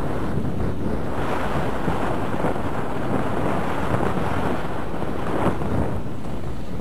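Strong wind buffeting the camera microphone, with waves washing on the shore beneath it; the wind noise swells a little from about a second in until near the end.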